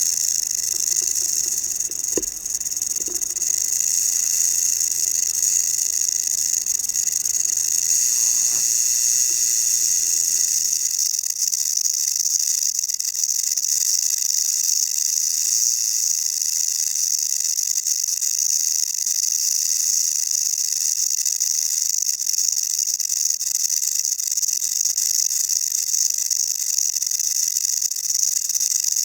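South American rattlesnake (Crotalus durissus) shaking its tail rattle in a continuous, steady high-pitched buzz: the defensive warning of an irritated snake.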